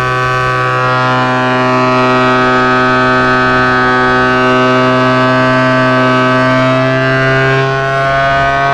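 Yamaha TMAX 500 scooter's parallel-twin engine running hard at high revs on a dynamometer, a loud steady note that rises slowly in pitch.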